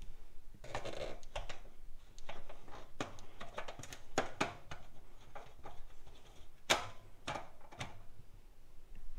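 Irregular clicks and knocks from a sheet-metal fluorescent light fixture as a hand loosens the fastener holding its belly pan; the sharpest click comes about two-thirds of the way through.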